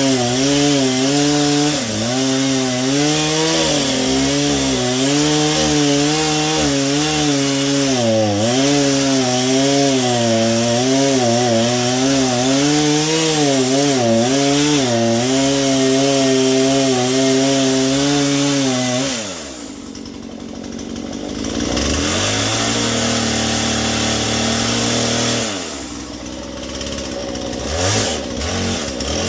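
Chainsaw cutting through a log under load, its engine pitch wavering up and down as it bites, with a chain that needed sharpening. About two-thirds of the way in the engine drops to idle, revs up again for a few seconds, falls back to idle, and is blipped a few times near the end.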